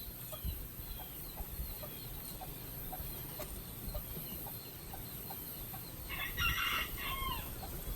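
Chickens clucking softly in short, repeated calls, with a louder call about six seconds in. A steady high hiss runs underneath.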